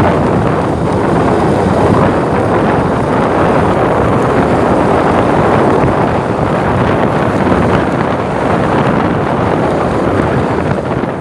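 Steady rush of wind buffeting the microphone on a moving motorcycle, mixed with road and vehicle noise.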